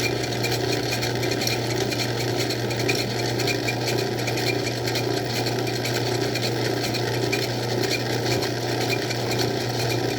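Craftsman 109 bench lathe running under a cut: a steady motor hum with a regular, rhythmic 'cha-cha' clatter that may be chatter.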